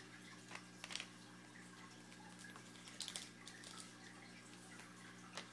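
Faint short clicks and slides of trading cards being handled and flipped, a few times, over a steady low hum.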